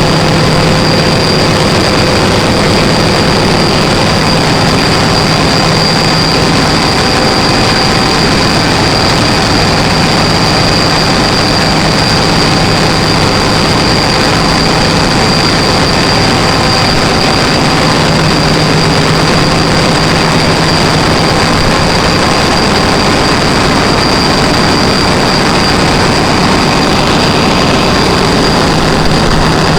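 Gas-engine generator running steadily at constant speed, a loud, even engine drone with a steady high whine over it.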